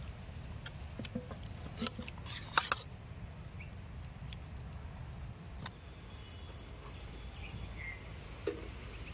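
Wet squelches and sharp clicks as marinated mackerel pieces are picked up with metal tongs from a steel bowl, over a steady low rumble. A small bird gives a quick high trill about two-thirds of the way through, then a single chirp.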